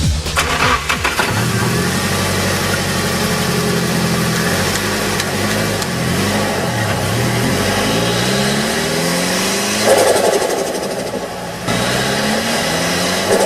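Turbocharged SR20DET inline-four engine revved up and down several times. About ten seconds in, and again near the end, the throttle closes and a fluttering chatter comes from the turbo: compressor surge, boost pressure escaping back through the spinning compressor wheel.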